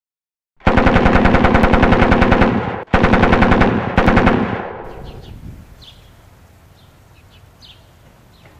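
Machine gun firing three bursts of rapid automatic fire at about ten shots a second, the first about two seconds long and the next two shorter, then an echo dying away.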